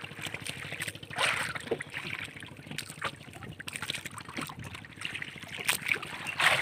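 Sea water lapping and sloshing against the hull of a small wooden outrigger canoe, with a few brief louder splashes.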